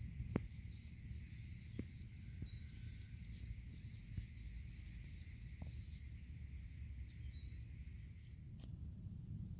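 Outdoor lakeside ambience: a steady low rumble with faint bird chirps and a few small clicks.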